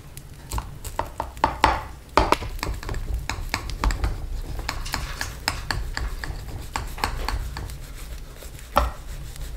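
Kitchen utensils clicking and scraping against dishes: an irregular run of small taps and scrapes, with a louder cluster about two seconds in and a sharp knock near the end.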